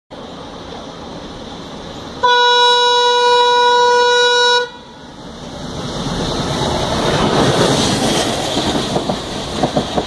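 WDM3A diesel locomotive's horn sounding one long, loud, steady note of about two and a half seconds, starting about two seconds in. After the horn, the rumble of the approaching locomotive and its train swells, with wheel clatter near the end.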